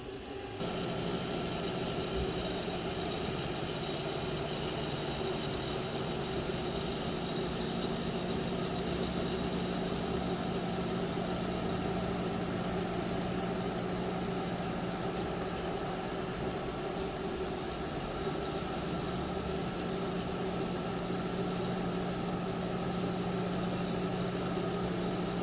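Landis CNC cylindrical grinder starting up about half a second in, then running steadily with a low hum and a high whine.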